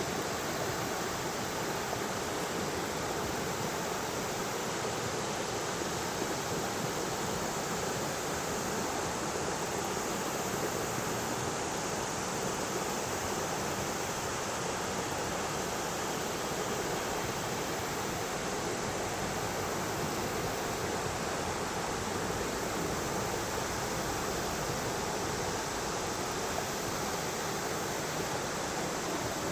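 Yellow River water flowing, an unbroken steady rush of moving water.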